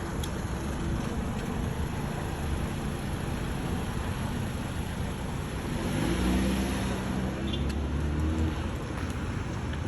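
Street traffic noise, with a motor vehicle's engine passing close and rising slightly in pitch about six seconds in.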